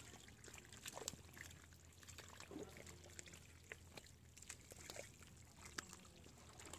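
Near silence, with faint wet squelches and trickles of mud and water and scattered small clicks.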